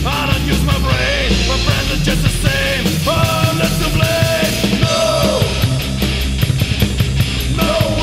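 Thrash/heavy metal music played from an album recording: distorted guitars and drums, with a held melody line whose notes bend downward at their ends. From about halfway through, a fast even beat of high strokes sets in, about four a second.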